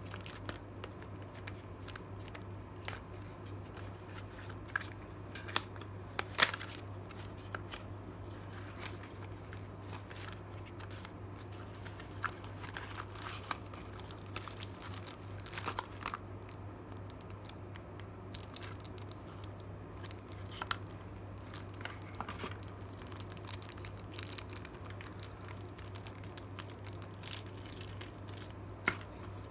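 Packaging being unwrapped by hand: plastic crinkling and tearing in scattered spells, with a few sharp clicks, the loudest about six seconds in, over a steady low hum.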